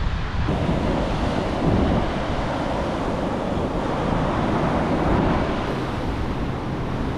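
Ocean surf breaking and washing up the beach, with wind noise on the microphone.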